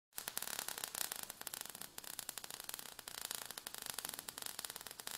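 Sound effect of sparks crackling and fizzing: a dense, continuous crackle over a hiss that starts abruptly just after the beginning.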